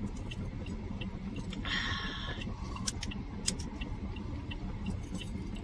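Steady low rumble of a car cabin, with faint evenly spaced ticks, about three a second. About two seconds in comes a short hissing slurp as a frozen drink is sucked through a straw.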